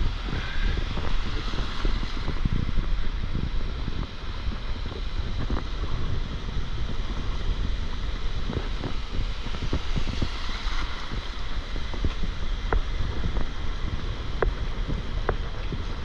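Ocean surf breaking and washing up a shallow sandy beach as foam, under heavy wind buffeting on the microphone.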